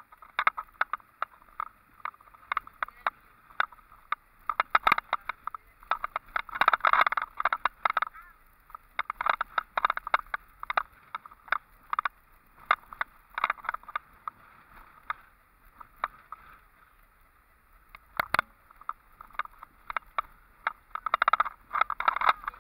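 Vehicle driving on a rough dirt road, heard from inside the cabin: a rapid, irregular clatter of rattles and knocks from the bumpy surface. It eases off for a few seconds about two thirds of the way through.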